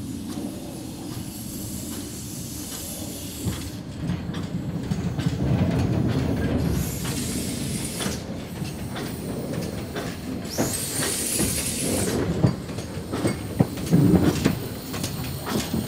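Orenstein & Koppel steam tank locomotive running slowly on rails, with a steady low rumble and many sharp clanks of wheels and motion. There is a burst of steam hiss about ten and a half seconds in, and louder knocks near the end as it passes close.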